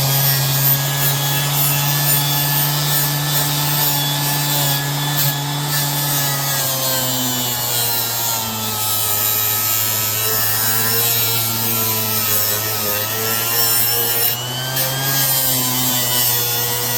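Orbital sander with a 220-grit Diablo disc running against a metal scraper blade clamped in a vise: a steady motor hum under a grinding hiss. The pitch of the hum drops about six seconds in and comes back up near the end.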